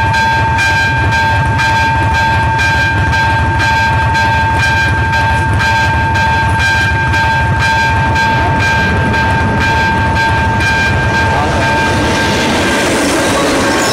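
AŽD 71 level-crossing warning bell ringing in a fast, even electronic pattern while the crossing is closed for a train. A low rumble runs beneath it. Near the end the bell pattern fades as the noise of the approaching train rises.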